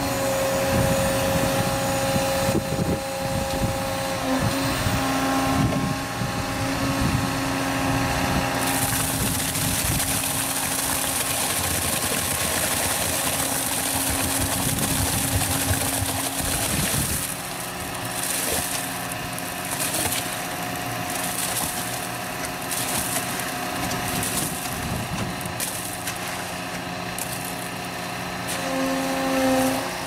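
Concrete poker vibrator running steadily while it is worked through wet concrete in a footing trench, a constant machine hum whose pitch pattern shifts about 17 seconds in.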